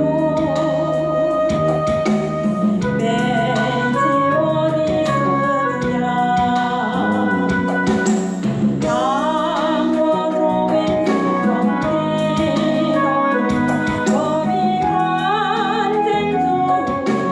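Gospel praise song: a solo voice sings a melody with vibrato over a backing of keyboard chords and a drum kit.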